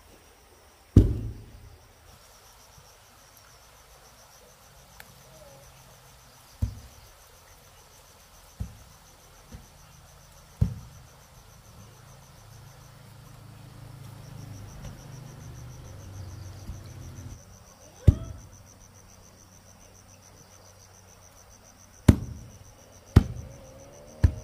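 About eight sharp knocks or thuds at uneven intervals, loudest about a second in and about 18 seconds in, over a steady high trilling of insects such as crickets.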